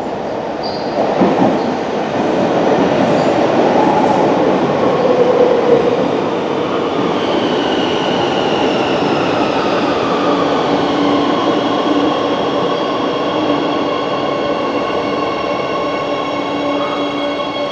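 Madrid Metro Serie 8400 electric trains running through the station: a loud rolling rumble of wheels on rail, then from about seven seconds in an electric whine that falls in pitch as a train slows, settling into steady tones.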